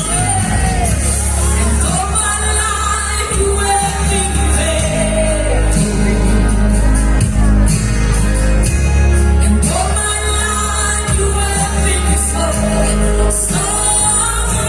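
A child's voice singing over loud amplified backing music with a heavy bass.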